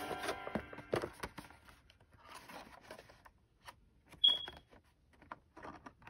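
Clear plastic refill packaging and boxed items handled by hand: scattered light rustles, taps and clicks, with one brief high ping about four seconds in.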